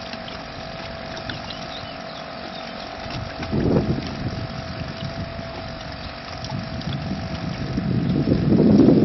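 Small outboard motor running steadily at cruising speed with a thin, even whine, while towing a sailing dinghy. Wind buffets the microphone about three and a half seconds in, then more strongly near the end.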